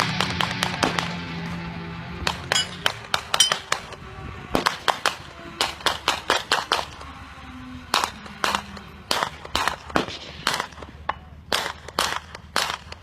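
Gunfire at a shooting range: a fast string of shots in the first second, then repeated single and clustered shots. Background music fades out over the first few seconds.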